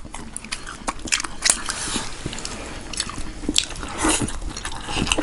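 Close-up sounds of a person biting and chewing food, with many small crisp crunches and mouth clicks, a little louder about four seconds in.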